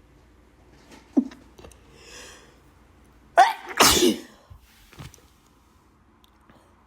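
A person sneezing once, loudly, about three and a half seconds in. Before it come a short catch in the throat and a drawn-in breath. It is an allergy sneeze.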